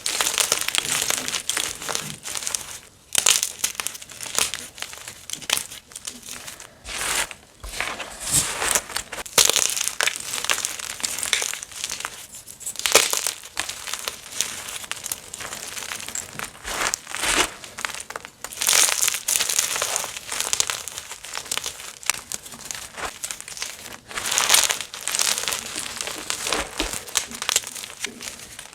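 Gym chalk being crushed and crumbled by hand: dry, crackly crunching that comes in irregular bursts with short pauses between them.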